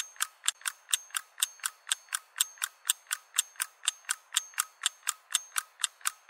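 Rapid, evenly spaced mechanical ticking, about five ticks a second, like a clock.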